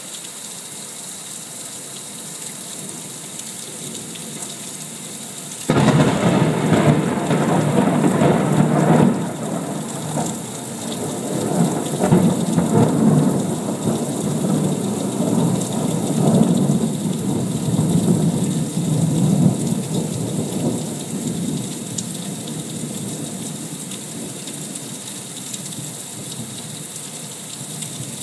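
Steady heavy rain, then about six seconds in a thunderclap breaks in suddenly. The thunder rolls on in several swells for about fifteen seconds before fading back under the rain.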